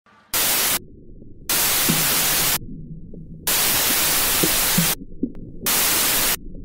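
Loud bursts of white-noise static, cut in and out abruptly four times, each lasting half a second to a second and a half, over a steady low rumble.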